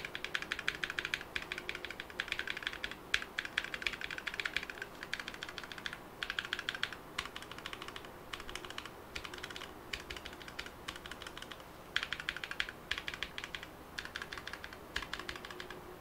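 Akko mechanical keyboard switches on a six-key macropad pressed and released rapidly in a sound test: quick runs of clacking keystrokes, broken by brief pauses.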